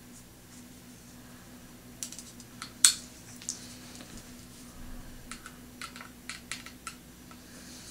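Scattered light clicks and taps of a screwdriver and the steel mounting bracket of a Roland GK-3 guitar pickup being handled and fitted, with one sharper click about three seconds in. A faint steady hum lies underneath.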